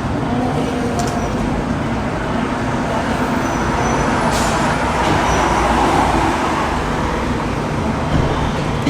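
Steady road traffic noise with vehicle engines running.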